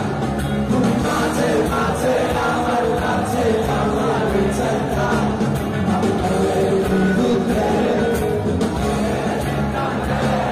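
Live rock band playing with a singer, heard from the audience in a concert hall.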